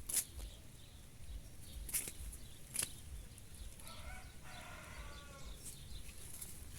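An animal calling once for about a second and a half, a little under four seconds in, after a few sharp clicks.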